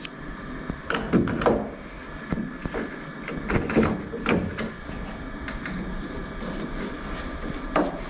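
Scattered knocks and clicks of a VW T4 van door handle being handled and fitted into the door, most of them in the first half.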